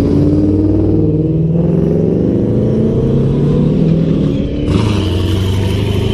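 Modified cars accelerating past one after another. A widebody Lexus RC coupe's engine climbs steadily in pitch as it pulls away. About four and a half seconds in, a rougher, hissier engine sound takes over as an off-road sand-rail buggy goes by.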